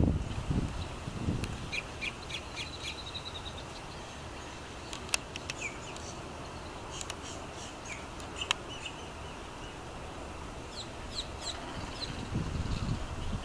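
Wild birds calling in a marsh: a quick run of short, high chirps in the first few seconds, then scattered sharp calls and a couple of clicks, with more high calls near the end. A low rumble comes in near the end.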